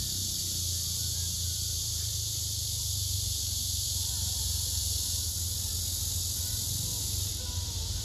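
Cicadas singing: a steady, high, hissing buzz, with a low steady hum underneath.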